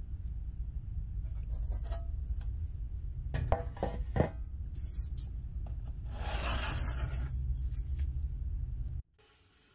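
Sandblasted metal lunch box lid set down on a workbench: a few sharp metallic clunks a little past the middle, then a brief scraping as it is slid into place, over a steady low hum that cuts off near the end.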